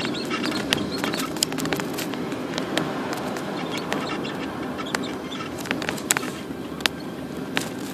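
Car driving slowly in town traffic, heard from inside the car: steady low road and engine noise with scattered sharp clicks.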